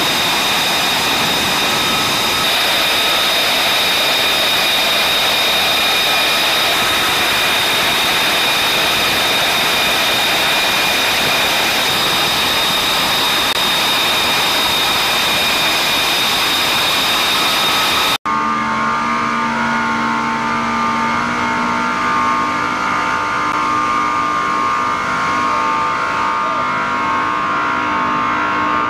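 Jet engine running steadily: an even rush with a high, steady whine. About two-thirds of the way through it cuts abruptly to a different steady engine drone with several fixed tones.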